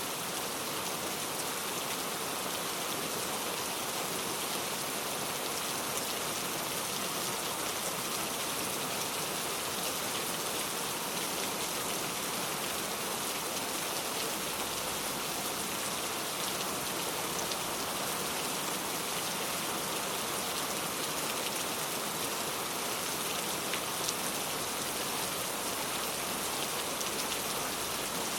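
Steady rain falling, a dense even patter of drops with a few slightly louder single drops standing out.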